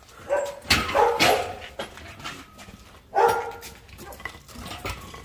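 A dog barking: a short run of barks about a second in and another bark near the middle.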